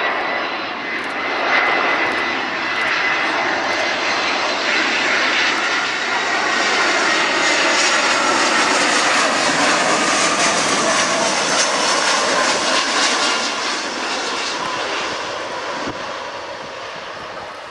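Airbus A320 jet airliner's twin engines on landing approach, passing close by: a loud jet rumble with a whine that drops in pitch as it goes past, fading near the end as it touches down and rolls away.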